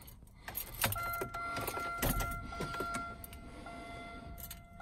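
Ignition key clicking in a 2003 Buick Century's switch, then a steady high electrical whine as the ignition is switched on before the cold start.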